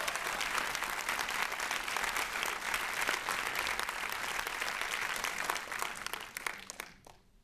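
Cinema audience applauding, the clapping dying away near the end.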